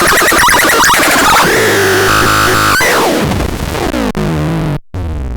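Brainwasher Ultra 260 noise device putting out harsh, chaotic electronic noise and squealing synth tones. About three seconds in, a tone slides steeply down in pitch. Near the end the sound cuts out for a moment and comes back as a quieter, lower buzz.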